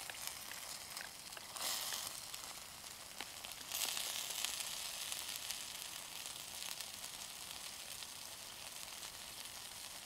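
Stir-fried noodles and vegetables sizzling in a pan over campfire embers. The sizzle flares up briefly about one and a half seconds in, and again more strongly about four seconds in, then settles back to a steady sizzle.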